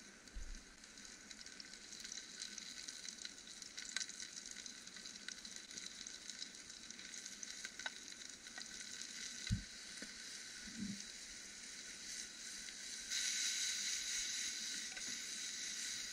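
Sliced mushrooms sizzling in a frying pan over a campfire: a steady frying hiss with fine crackles that grows louder about two-thirds of the way through. A couple of dull knocks come near the middle.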